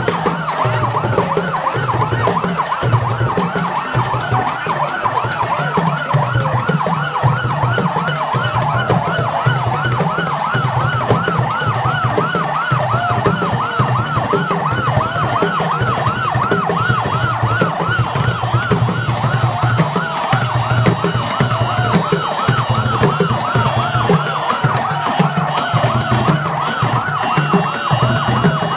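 An electronic siren wailing in a fast up-and-down yelp, about three swoops a second, with no break. Underneath is a dense din of crowd noise and percussive thuds.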